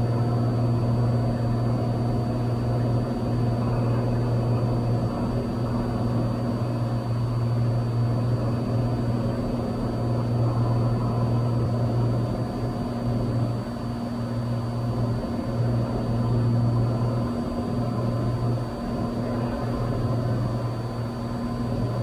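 Cessna 182 engine and propeller in cruise, heard from inside the cabin as a steady low drone that hardly changes.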